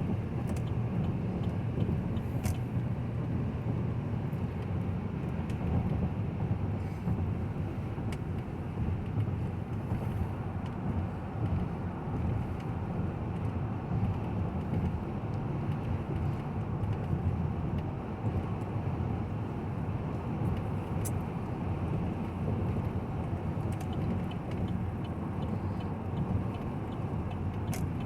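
Steady cabin noise of a 2019 Chevy Tahoe with a 5.3-litre V8 being driven: a low, even hum of engine and road noise, with a few faint clicks.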